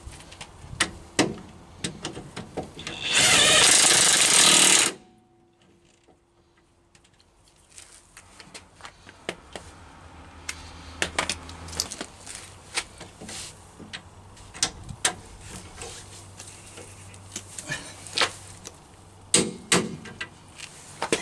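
A DeWalt cordless power tool runs in one loud burst of about two seconds, a few seconds in, driving a bolt on a rear shock absorber, and cuts off sharply. Around it come scattered clicks and knocks of hand tools on metal.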